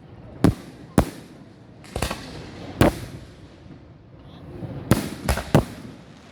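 Fireworks going off: seven sharp bangs at uneven intervals, the last three in quick succession near the end.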